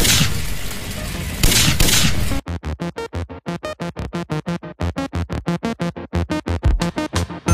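Intro sting with two loud noisy swells and crashes, then electronic background music with a fast chopped pulse of about five beats a second.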